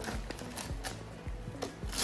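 Gift-wrapping paper crinkling and tearing in quick, irregular rustles as a present is unwrapped, over faint music.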